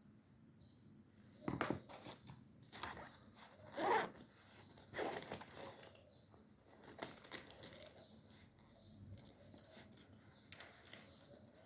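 Desk study sounds of paper and stationery being handled: a run of short scrapes and rustles at uneven intervals, the loudest about four seconds in.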